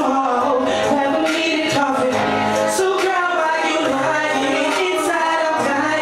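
A man singing live into a handheld microphone over backing music, his voice sliding between held notes above a steady low bass line.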